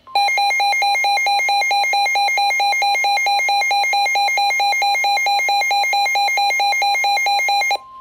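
Midland WR-120 weather radio sounding its warning alert: a loud, rapid electronic beeping of about five pulses a second over a steady single tone. It is the radio's alarm set off by a severe thunderstorm warning broadcast. The beeping cuts off suddenly near the end, leaving the steady tone on its own.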